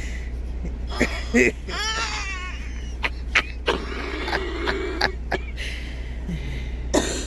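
Dog whining and whimpering in short falling cries, with snuffling and rustling on bedding, over the steady low hum of an idling truck engine.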